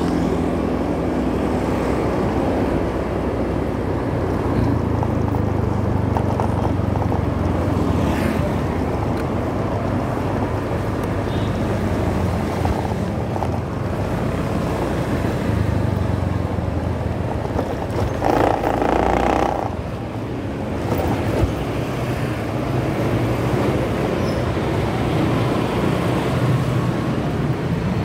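Steady road noise of riding a motorcycle through traffic: engine rumble mixed with the hiss of passing vehicles, with one louder swell about two-thirds of the way through.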